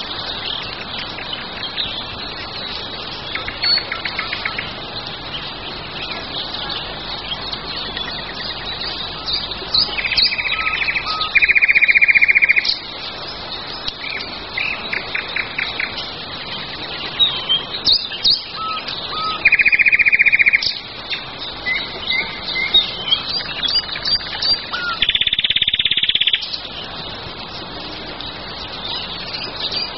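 Songbirds singing: many short chirps and calls, with a loud rapid trill a second or so long coming four times, over a steady background hiss.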